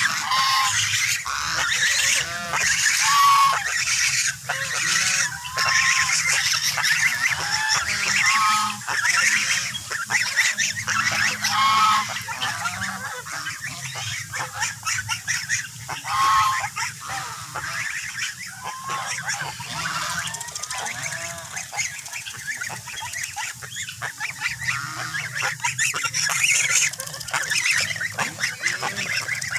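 A flock of domestic geese honking noisily, many calling over one another, with clear single honks standing out every few seconds.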